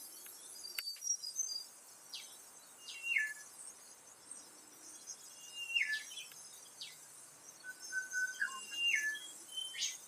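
Australian dawn chorus: wild birds calling in a recording, with scattered short whistled notes, several dropping in pitch in a single step, over a faint steady hiss.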